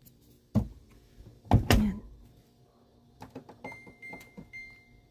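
Two dull thuds, then a run of clicks and three short high beeps from a washing machine's control panel as its buttons are pressed.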